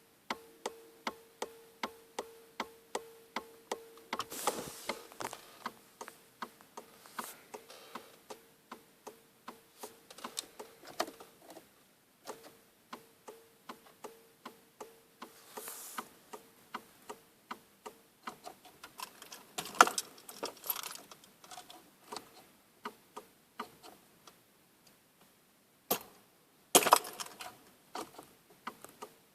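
Regular clicking, about three clicks a second, from under the steering wheel of an Audi 80 1.9 TDI, over a faint steady hum. This is the strange noise the owner is recording. About halfway through the clicking turns irregular, and a few louder knocks come in near the end.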